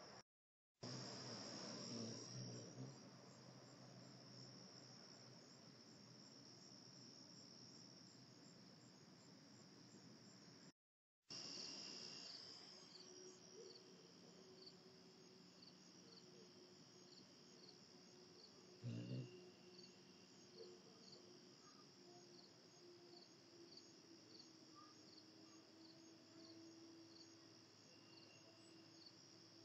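Faint, steady, high-pitched trilling of insects. After a brief cut about 11 s in, a regular pulsing chirp joins the trill. A short soft knock comes about 19 s in.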